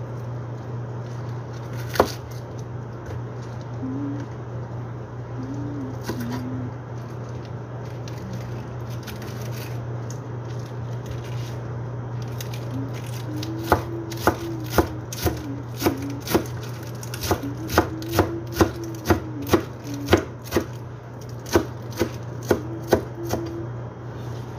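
Chef's knife chopping a leafy vegetable on a plastic cutting board: a quick, slightly uneven run of knife strikes on the board in the second half, about two to three a second. A single sharp knock about two seconds in, over a steady low hum.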